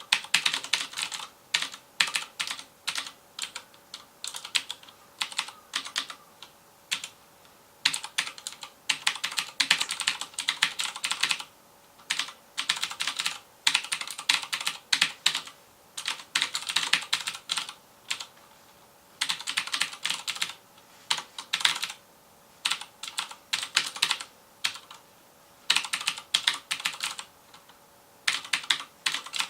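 Fast typing on a FILCO Majestouch Convertible 2 mechanical keyboard with Cherry MX Blue switches: sharp clicky keystrokes in bursts of a few seconds, separated by short pauses.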